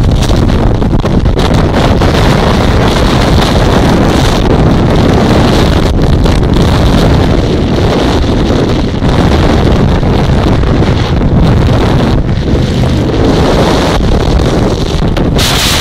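Heavy wind buffeting on the microphone of a motorcycle at road speed, over the low steady rumble of the motorcycle's engine.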